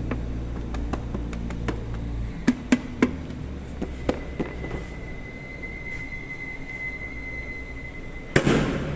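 Yamaha LC135 motorcycle exhaust giving scattered sharp pops over a low running note that drops away about two seconds in. A thin steady whine follows, then one loud sudden bang near the end.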